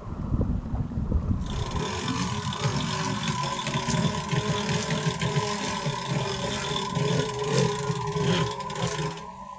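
Steady mechanical running noise aboard a sailing yacht with a constant hum. It starts about a second and a half in and stops shortly before the end.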